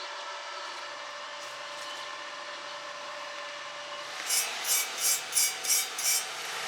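A steady hiss, then about six rhythmic scraping strokes, roughly three a second, in the second half: a tool scraping or brushing metal.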